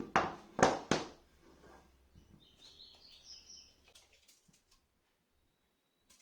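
Three sharp knocks within the first second, then a bird chirping briefly a couple of seconds later.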